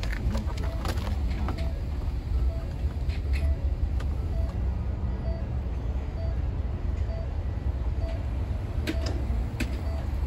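Plastic clicks and knocks from a new turn signal switch being fitted onto a car's steering column, several near the start and a couple near the end. Under them a steady low hum runs, with a short beep repeating about every two-thirds of a second.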